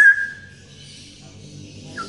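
Male straw-headed bulbul (cucak rowo) ending a song phrase on a held whistled note that fades out within the first half second, then a pause with a faint low hum until a short note at the very end.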